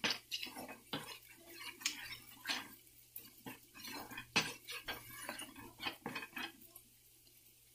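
Wooden spatula scraping and knocking against a nonstick frying pan as a thick masala paste is stirred and dry-fried without oil, in quick irregular strokes that stop about six and a half seconds in.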